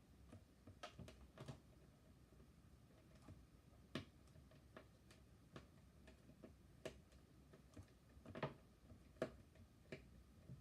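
Faint, irregular small clicks and ticks of a short screwdriver and fingers working the tiny screws that hold a laptop's LCD panel in place, with the sharpest clicks about four seconds in and again near the end.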